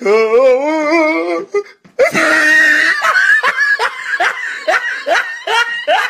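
A man laughing: a long wavering high-pitched laugh that breaks off about a second and a half in, then a loud burst and a run of quick 'ha-ha' bursts, about three a second.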